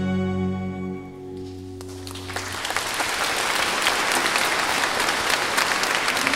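The last held chord of a small orchestra with guitars rings out and fades, and about two seconds in an audience breaks into steady applause.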